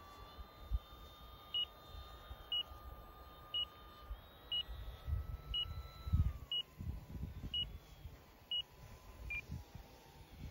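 A string of short, high electronic beeps, about one a second, nine in all, the last a little lower in pitch. Under them runs the faint steady whine of a model aircraft in flight, slowly dropping in pitch, with wind gusting on the microphone.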